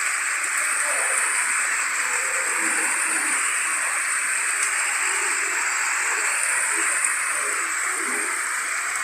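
Rain falling steadily, an even hiss, with a thin steady high-pitched tone running above it.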